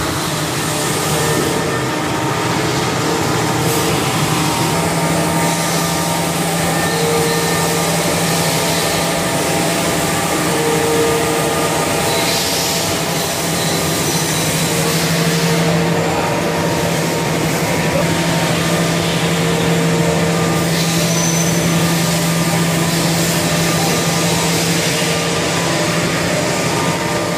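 Haas SL-30M CNC turning center running: a steady mechanical hum with a low tone that sets in about four seconds in, over a constant hiss.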